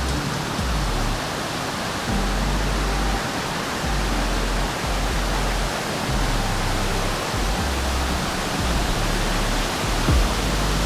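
Steady rush of a waterfall on a mountain river, with background music's bass line underneath.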